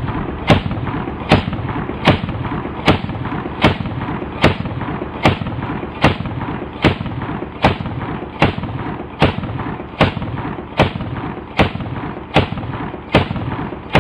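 AA-12 12-gauge shotgun fed from a 20-round drum, firing shot after shot at an even pace of a little over one a second.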